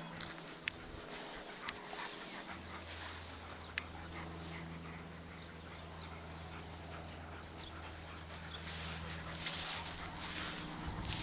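A dog panting, with a few sharp clicks and a steady low hum underneath; the breathing gets louder near the end.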